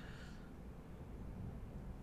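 Quiet room tone: a low steady hum with faint background noise and no distinct events.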